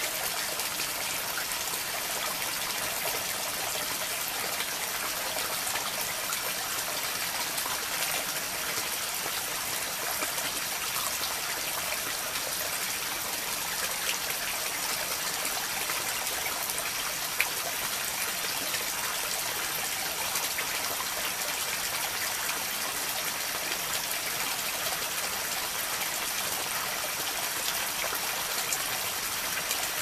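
Water trickling and flowing steadily through a flooded rice paddy, an even splashing hiss with no let-up. One brief tick stands out about halfway through.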